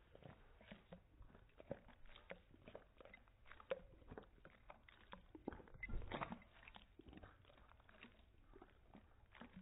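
A dog licking liquid off a ceramic plate: faint, irregular wet lapping clicks, a few a second, louder for a moment about six seconds in.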